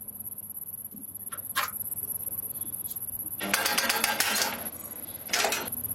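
Metal clinks, then a rapid metallic rattle about a second long in the middle and a shorter one near the end, as of hand tools being worked on a motorcycle. A steady high-pitched whine runs underneath.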